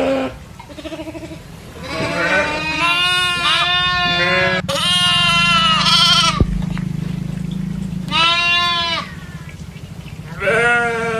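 Goats bleating, a run of wavering calls of a second or two each, some overlapping, over a steady low hum.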